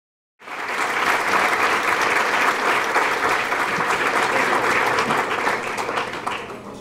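Audience applauding: many hands clapping in a dense, steady patter that starts suddenly and begins to die down near the end.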